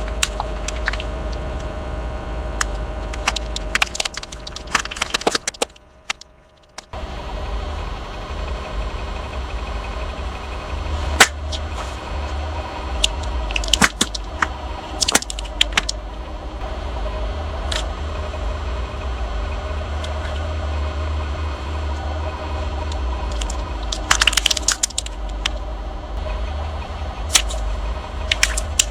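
Car rolling slowly over objects as they are crushed: a steady low engine and tyre rumble with scattered sharp cracks and pops, in clusters, with a brief dropout about six seconds in.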